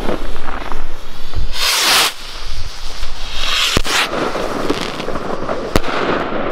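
Two fireworks rockets (Nico Ghost) lit together: fuses spitting, a loud rushing hiss as they lift off about two seconds in, then two sharp bangs as they burst, one just before four seconds and one near six.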